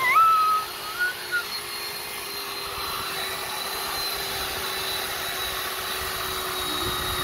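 Corded electric chainsaw running steadily with a constant whine. A toddler squeals with laughter over it in the first second or so.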